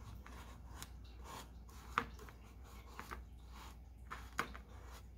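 Faint rustling and scraping of cardboard and paper as hands press and shift a cardboard mask over a tin can, with a few light taps, the clearest about two seconds in.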